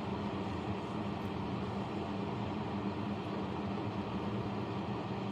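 Steady whir of an electric fan with a low, even hum underneath; no change in level.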